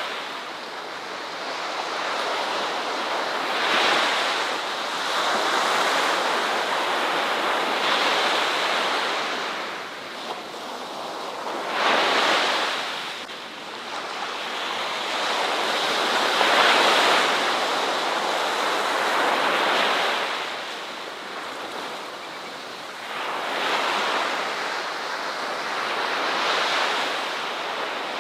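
Ocean waves breaking and washing on a shore, a steady hiss of surf that swells and fades every three to four seconds, with a gust of wind on the microphone.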